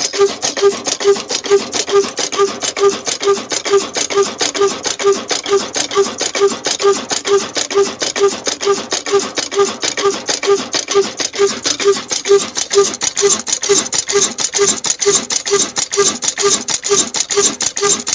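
Old Ruston diesel engine running steadily: a rapid, even mechanical clatter with a heavier beat about three times a second.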